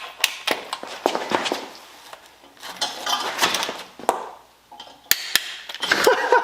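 Metal hand tools clinking and clattering against the engine, with several sharp clicks and knocks and some scraping in between.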